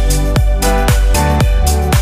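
Electronic background music with a steady beat, about two beats a second, over a bass line and held synth notes.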